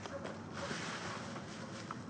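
Footsteps of a person running through dry fallen leaves, a soft rustling crunch.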